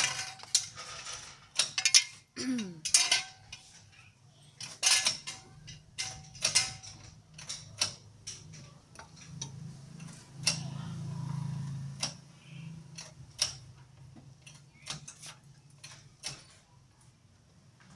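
Mechanic's hand tools working on metal car parts, giving irregular sharp clicks, clinks and knocks. A low hum swells briefly in the middle.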